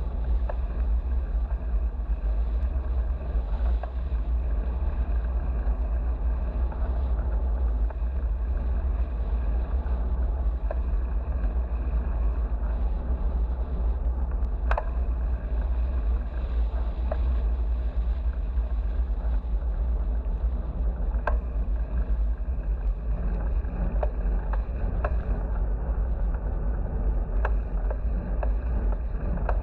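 Steady low rumble of wind buffeting a bicycle-mounted action camera's microphone while riding, with occasional small clicks.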